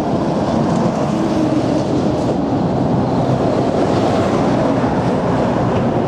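Trucks and cars passing on the roadway close by, a steady, dense traffic rumble.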